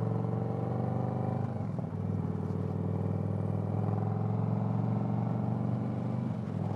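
V-twin motorcycle engine running while riding. Its pitch rises gently for the first second and a half, dips briefly, then holds steady, with another small dip near the end.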